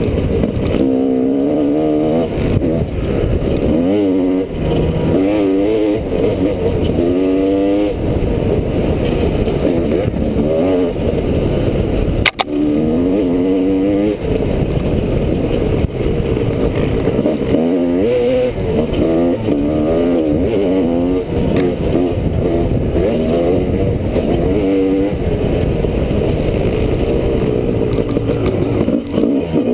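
Honda CR250R's two-stroke single-cylinder engine being ridden hard, its pitch rising and falling over and over as the throttle is opened and closed.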